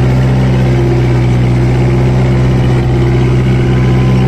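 Kubota MU4501 tractor's four-cylinder diesel engine running at steady speed under load, pulling an 11-tine cultivator through the soil; an even, unchanging engine note with no revving.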